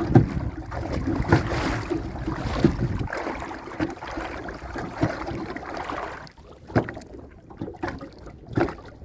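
Wind buffeting the microphone over the splash and rustle of a prawn trap being hauled in from a small boat, giving way after about six seconds to scattered sharp knocks and clatter as the trap is handled.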